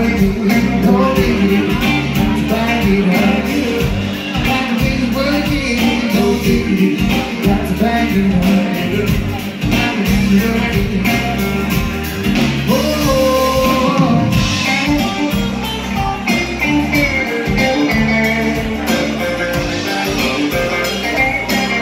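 Live band playing a rock cover: electric and acoustic guitars, bass and drums with a lead vocal singing over them.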